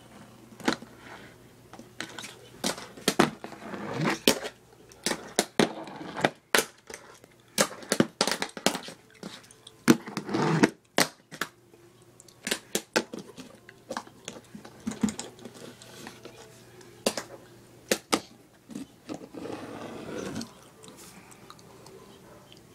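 Tech Deck fingerboard clicking and clacking irregularly against hard surfaces, with a few short scraping rolls in between.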